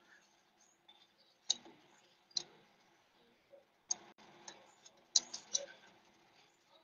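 A few light, sharp clicks and taps from small objects being handled: one about a second and a half in, another a second later, one near four seconds, then a quick cluster of three around five seconds in.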